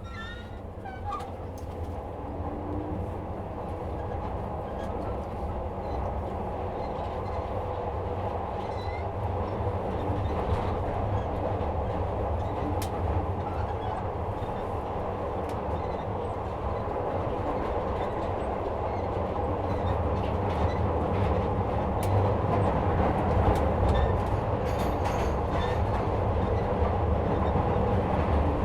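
Running noise of a 2nd Gen Glasgow Subway train, heard from inside the carriage: a steady low hum under wheel and track rumble, growing steadily louder.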